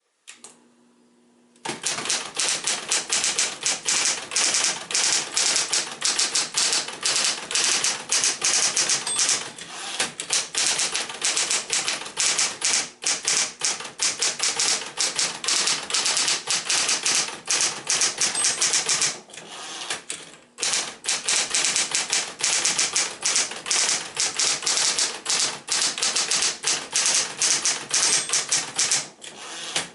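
Smith-Corona Coronet Electric 12 electric portable typewriter being typed on fast, a dense rapid clatter of keystrokes with a short break about two-thirds of the way through. It opens with a faint steady hum for about a second and a half before the typing starts. The machine is well into its sixth decade and running like new.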